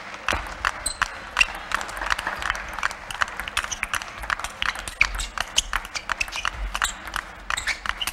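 Table-tennis rally: the celluloid ball clicking off the rubber-faced bats and bouncing on the table in quick, uneven succession, over a low rumble in the hall.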